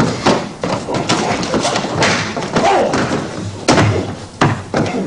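Free sparring on a mat: an irregular string of sharp thuds and slaps from strikes, stamping footwork and a body going down to the floor, the loudest knock a little over halfway through.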